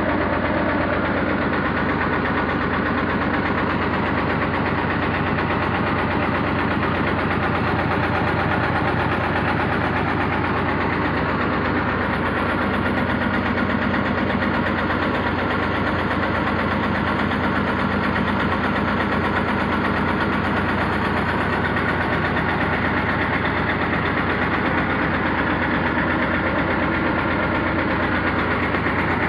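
Mini excavator's diesel engine running steadily, with a fast, even pulsing.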